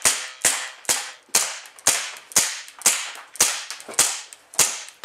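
KWA M1911 full-metal gas blowback airsoft pistol firing a steady string of about ten semi-automatic shots, roughly two a second, each a sharp crack as the gas fires and the metal slide blows back.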